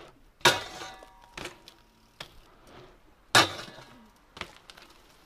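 BMX bike striking a low metal rail: two sharp metallic clanks about three seconds apart, the first ringing briefly, with lighter clicks and knocks from the bike in between.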